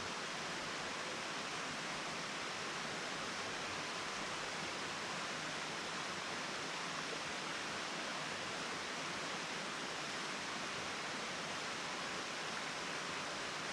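Steady, even rush of an 80-foot waterfall, a continuous hiss of falling water without change.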